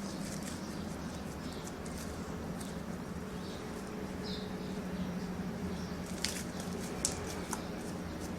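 Slime being pressed and pulled around a bowl: soft sticky squishing, with a few sharp clicks in the second half.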